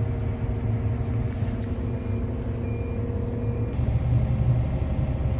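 Volvo articulated dump truck's diesel engine running, heard from inside the cab as a steady low drone with a thin whine over it. Two faint short beeps come about two seconds in, and just before four seconds the whine stops and the low drone grows louder.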